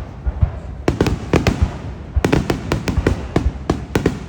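Fireworks bursting in a rapid volley of sharp bangs, several a second, with a short lull a little before halfway before the bangs come thick again.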